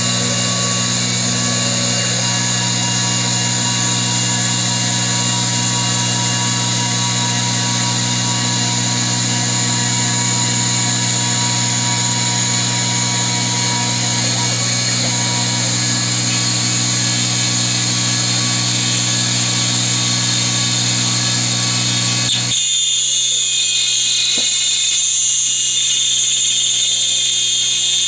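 Taig CR19 milling machine's spindle running steadily as the cutter mills a wooden block under a programmed cut. Its tone changes about 22 seconds in.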